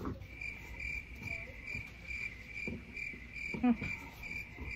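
A cricket chirping steadily: a single high pitched chirp repeated about four times a second.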